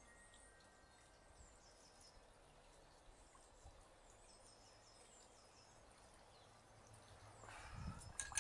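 Faint songbird singing in short, repeated high chirping phrases over a quiet outdoor background, with a brief louder rustling or handling noise near the end.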